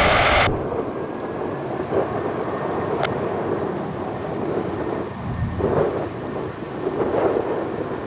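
Low, rough rumble of a heavy jet's engines on its takeoff run, rising and falling unevenly. A short burst of radio static ends about half a second in.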